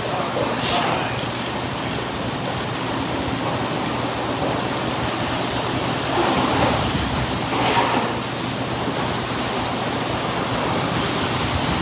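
Steady hiss of water jetting from a hose spray nozzle and splashing onto a tiled floor, swelling briefly a couple of times.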